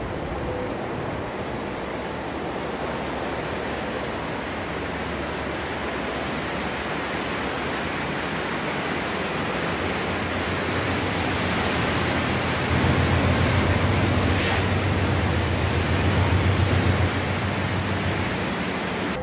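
Steady rushing hiss of snow being blasted off the track by a railway snowplow, growing louder as it approaches, with a low rumble joining about halfway and swelling near the end as the plow train comes close.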